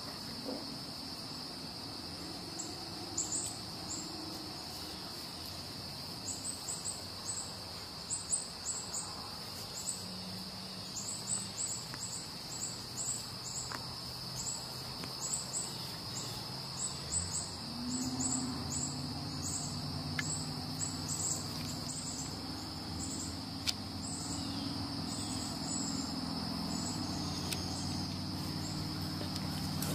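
Outdoor ambience: a steady high insect drone with runs of short, high chirps over it. From a little past halfway a low, steady engine hum comes in and keeps going.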